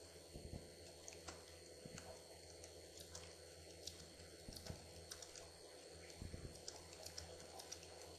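Faint typing on a computer keyboard, irregular quick keystrokes over a low steady hum.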